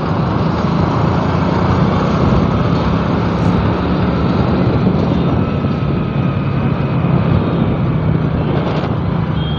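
Steady drone and road and wind noise of a moving vehicle cruising along, with no change in speed.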